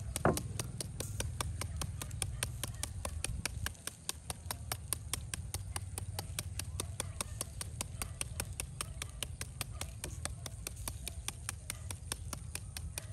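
Rapid, even knife strokes chopping on a cutting board, about five a second, with one louder knock at the start and a low rumble underneath.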